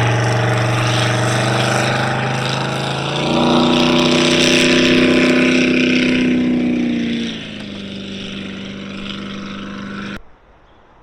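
Boat's outboard motor running; about three seconds in it speeds up to a higher steady pitch, and about seven seconds in it drops back to a lower, steady run. The sound cuts off suddenly near the end.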